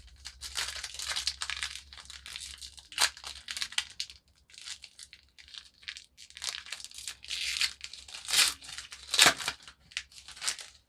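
Foil wrapper of a trading card pack being torn open and crinkled by hand, irregular rustling with a few sharper rips about three seconds in and near the end.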